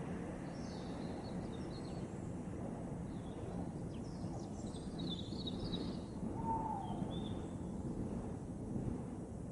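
Outdoor ambience: a steady low rumble with small birds chirping on and off over it.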